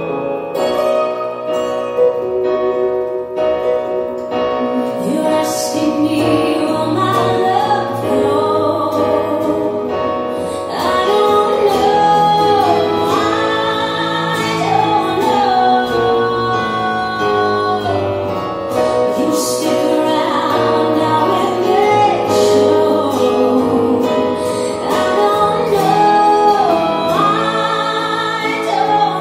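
A song with a singing voice over piano and sustained chords, played back through Acoustic Research AR-3 loudspeakers driven by a Grundig SV80 amplifier and heard in the listening room.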